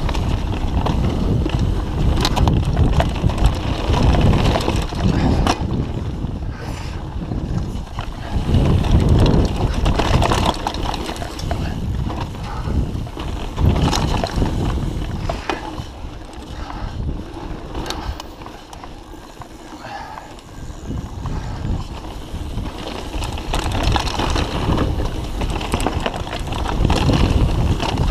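Mountain bike riding fast over dirt singletrack: wind buffeting the microphone, knobby tyres rumbling on the dirt, roots and stones, and the bike rattling with frequent knocks over bumps. It goes quieter for a few seconds about two-thirds of the way through, then picks up again.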